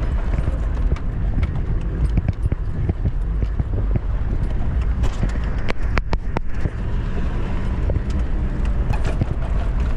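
Toyota 4x4 driving over rough desert ground: a steady low engine and road rumble, with frequent knocks and rattles as the vehicle jolts.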